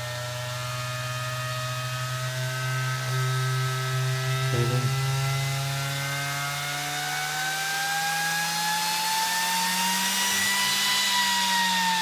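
Dell PowerEdge R710 server fan spinning up as a fan controller raises it from about 7,000 to nearly 10,000 RPM. It gives a whirring whine that climbs steadily in pitch, peaks near the end and starts to ease.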